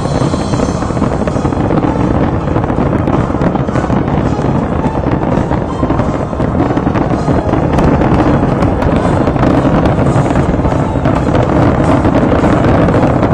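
Fireworks finale barrage: shell bursts and crackling effects going off in rapid succession, the bangs overlapping into a continuous rumble, growing a little louder in the second half.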